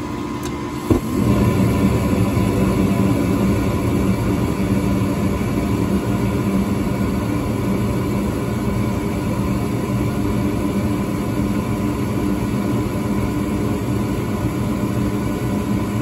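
Gas furnace lighting: about a second in the burners catch off the glowing hot-surface igniter with a sudden thump, then the burner flames run steadily over the hum of the running blower. The flames stay lit now that the bad flame sensor that made them drop out has been replaced.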